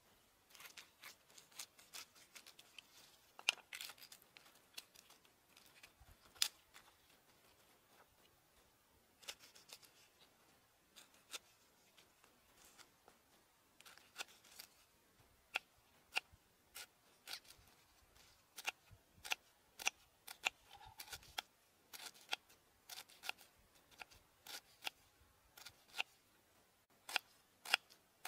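A kitchen knife slicing fresh lemongrass stalks into thin rings on a wooden chopping block: sharp, crisp cuts at an uneven pace, about one or two a second.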